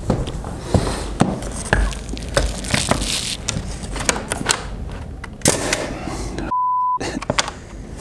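Irregular knocks and thunks of wooden trim boards being handled and set against a door frame. About six and a half seconds in, a half-second pure bleep tone cuts in over silence.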